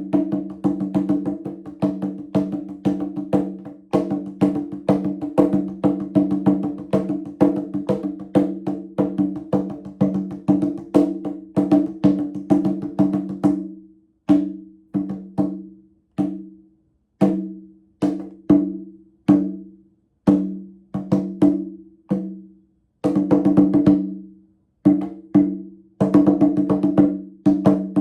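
Percussion music: sharp struck notes ringing on two low pitches. It starts as a fast, steady run of hits, then from about halfway thins out to single strikes, about one a second, with short silences between them.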